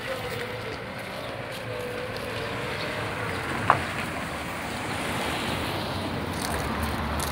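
Steady outdoor background rush with wind on the microphone, and one short sharp click about halfway through.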